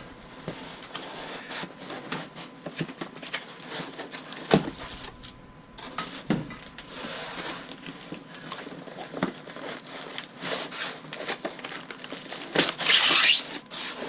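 Packaging rustling and crinkling as kit parts are handled, with scattered light clicks and knocks of parts being set down; a louder crinkling burst near the end.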